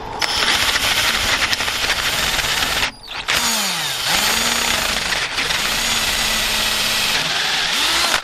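Electric drill boring a 3/8-inch hole into the edge of a door at the hinge, where broken screws were drilled out, to take a glued dowel. The drill runs loud, stops briefly about three seconds in, then drills on with its pitch dipping and rising under load, and cuts off at the end.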